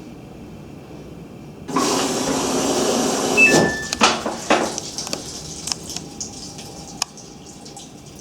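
Samsung washing machine that will not complete its spin cycle: a low hum, then a sudden loud rush of water about two seconds in that lasts a couple of seconds, followed by scattered clicks and knocks.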